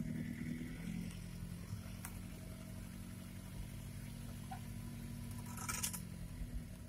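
Chevrolet LUV 4x4 pickup's engine running steadily at low speed, heard from inside the cab while it drives a dirt track. A short burst of noise about six seconds in.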